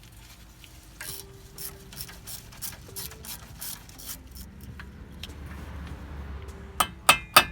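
Hand ratchet on a 10 mm bolt, clicking in repeated short strokes as it backs out the ABS sensor bolt. Near the end, loud sharp metal-on-metal strikes start, about three a second.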